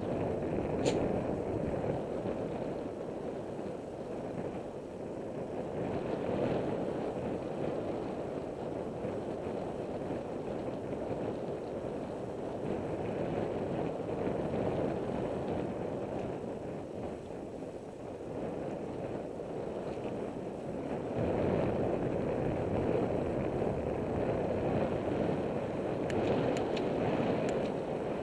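Wind rushing over the microphone of a camera riding along on a bicycle, with road noise: a steady rushing that swells and eases, louder over the last quarter, with a few faint ticks.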